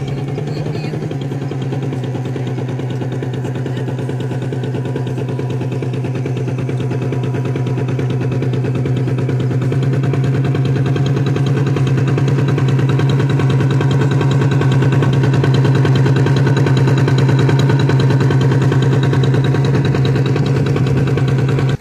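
Radio-controlled model fishing boat's engine running steadily, heard up close from its deck: a fast, even pulsing over a low hum that slowly grows louder.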